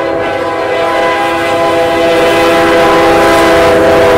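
Norfolk Southern diesel locomotive's air horn sounding one long, loud blast, a chord of several tones, as the freight train approaches. The rumble and rush of the locomotive rise near the end as it passes.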